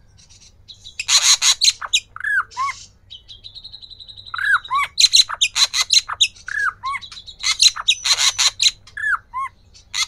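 Caged srikantil (ashy drongo) singing in a repeating phrase: loud harsh chattering bursts alternate with short rising-and-falling whistles, and about three seconds in a thin high whistle is held for over a second.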